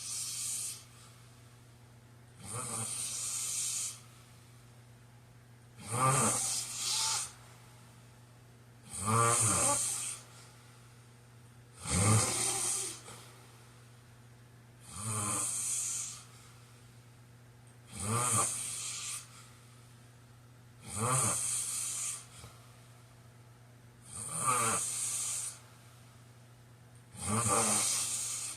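A man snoring in his sleep in a steady rhythm, one snore about every three seconds, each about a second long. Most snores carry a fluttering rattle.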